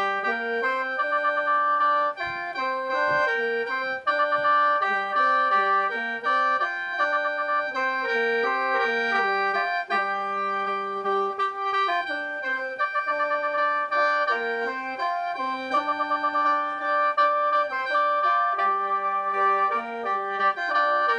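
Khaen, the Lao bamboo free-reed mouth organ, playing in lai sao mode. A melody with quick trills moves over several drone notes held steady at once.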